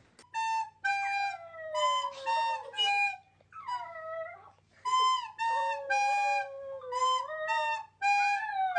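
A recorder plays simple held notes while a chihuahua howls along, its howl sliding up and down in pitch against the steady notes, with a few short breaks.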